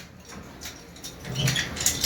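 A lull in work on old water pipes: faint small knocks and scrapes, with a brief low hum and a few light clicks in the second half.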